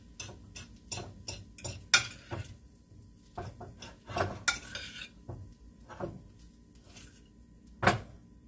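Spoon clinking and scraping against a white ceramic casserole dish as cooked rice is stirred: an irregular run of quick taps and scrapes, with a sharp clink about two seconds in and another near the end.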